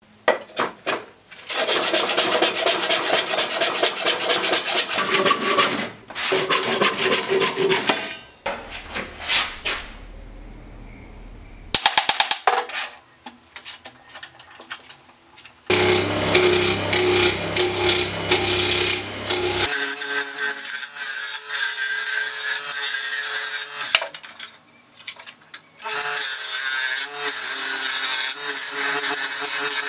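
Woodworking sounds in quick cuts: a saw working through a green tree branch clamped in a bench vise, then a wood lathe running while a gouge cuts into the spinning log blank, the motor's steady hum under the cutting noise.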